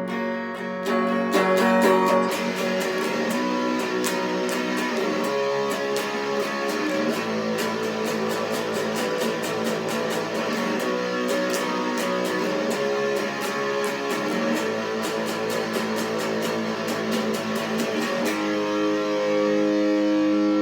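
Electric guitar played through an amplifier: a run of quickly picked notes and chords, then a chord left ringing near the end.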